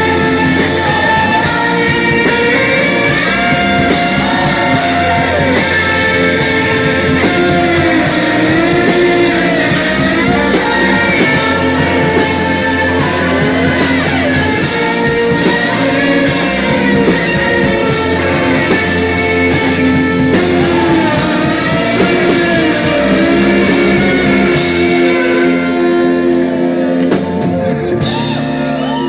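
A live rock band playing, with singing over guitars and drums. Near the end the cymbals and drums drop away as the song winds down.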